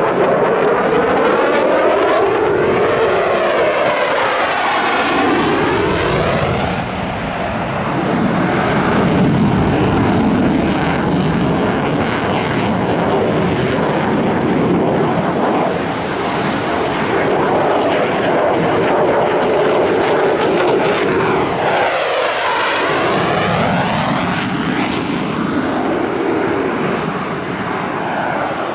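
Eurofighter Typhoon's twin EJ200 turbofans in a loud, continuous jet roar during a low display. The tone sweeps as the jet passes by about 4 seconds in and again about 22 seconds in.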